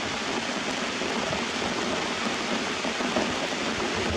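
Steady rain falling on leaves and rocks.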